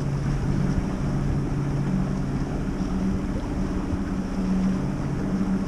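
Tohatsu outboard motor running with a steady hum as the skiff runs across open water, with wind buffeting the microphone.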